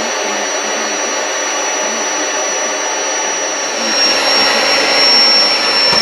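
Small electric air pump running steadily with a high whine while inflating something. About four seconds in it grows louder and the whine dips slightly in pitch as the inflatable fills.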